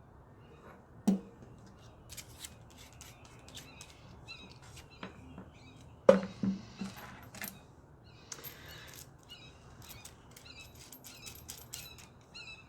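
Light clicks and small knocks of a soldering iron and its tips being handled, with two sharper knocks about a second in and about six seconds in. Birds chirp faintly in the background.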